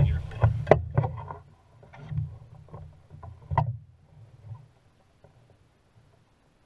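Knocks and bumps against a canoe hull while a landed fish is handled, over a low wind rumble on the microphone. Several sharp knocks fall in the first few seconds, then the sounds die away to near quiet about four seconds in.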